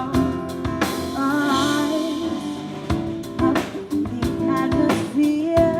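A band playing a song live, with guitar and drum kit, and a wavering wordless vocal line about a second in between sung lines.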